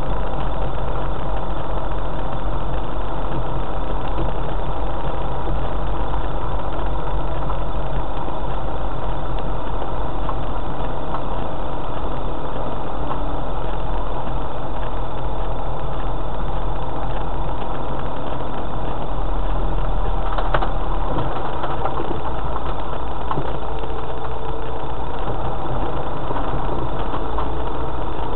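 4x4's engine running at low revs as it drives slowly along a rough unsurfaced lane, a steady low drone. A single sharp knock about twenty seconds in.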